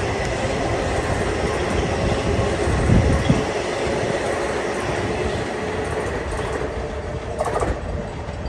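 LIRR M9 electric multiple-unit train rolling past, a steady rumble of wheels on rail with two low thumps about three seconds in. The sound fades as the last car pulls away near the end.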